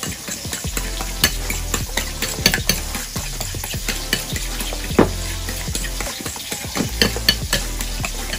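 Two eggs being beaten with a metal fork in a ceramic bowl: quick, irregular clicks and scrapes of the fork against the bowl.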